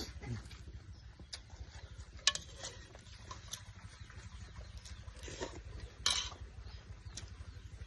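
Light clinks and taps of utensils against dishes during a meal, a few sharp ones standing out, over a steady low hum.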